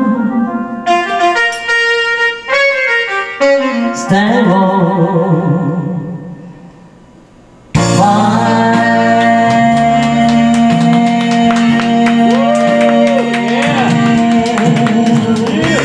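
A woman singing karaoke into a handheld microphone over a backing track. The music fades to a quiet dip about six seconds in. Almost eight seconds in, loud music with a steady bass line starts abruptly, and her voice wavers and bends over it.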